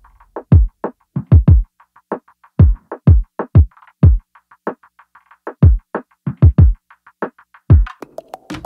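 Electronic background music: a beat of deep kick drums that drop in pitch, with light ticking hi-hats between them, the ticks growing denser near the end.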